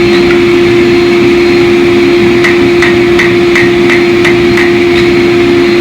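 Hammer blows ringing on hot steel at the anvil, about three strikes a second, starting about two and a half seconds in and stopping near the end. A loud steady hum runs underneath.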